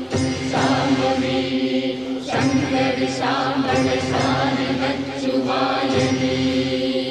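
Devotional chant-style music: voices chanting over a steady held drone.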